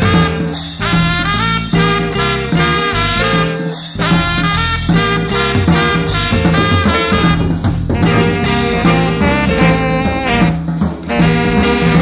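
Instrumental band music with a swing feel: a horn line with saxophone and brass over a steady bass line, with no singing.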